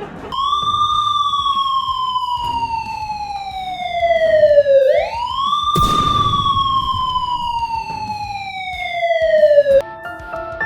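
A siren wailing: a pitched tone that climbs quickly, then slides slowly down over about four and a half seconds, and does so twice before cutting off. A sharp bang comes about six seconds in, and music starts near the end.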